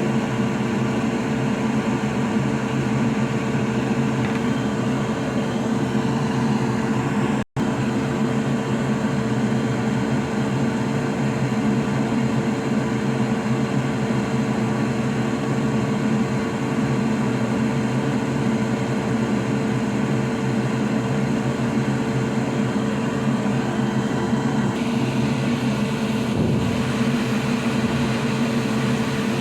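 Steady electric fan hum with a constant tone, cutting out for an instant about seven seconds in.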